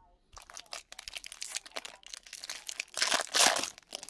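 Foil wrapper of a baseball card pack crinkling and tearing as it is opened, with the loudest rip about three seconds in.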